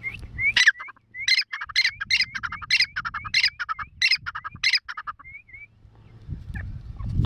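A francolin, the Irani or brown teetar, gives its loud territorial call: a rapid series of harsh, rising notes repeated about every half second, which stops a couple of seconds before the end. A low rumbling noise comes up near the end.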